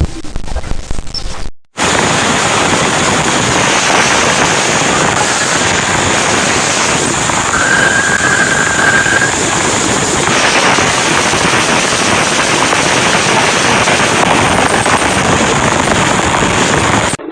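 Sonification of spacecraft data: a dense, steady crackling hiss like radio static. It cuts out for a moment near the start, and a faint thin tone is held for about two seconds in the middle.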